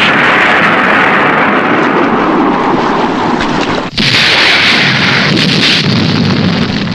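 Two explosion sound effects from a Japanese special-effects film, back to back: a long noisy blast lasting about four seconds, then a second, hissier blast that cuts in and runs to a fade.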